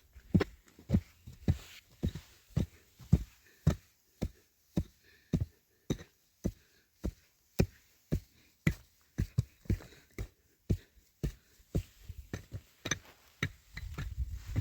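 Steady rhythmic striking: sharp knocks a little under two a second, coming a bit faster and less evenly near the end.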